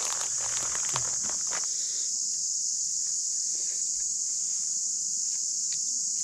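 Steady high-pitched buzz of a forest insect chorus, with the crinkling and rustling of a plastic bread packet being handled for about the first second and a half, then only a few faint clicks.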